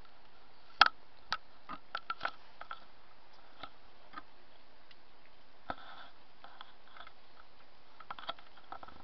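Irregular light clicks and taps, bunched in the first few seconds and sparser afterwards, over a steady faint background hum: handling noise from a hand-held camera.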